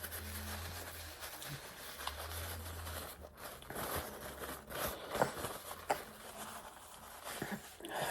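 Chewing and small mouth and handling noises of someone eating pizza, a few scattered clicks over a faint low hum that comes and goes.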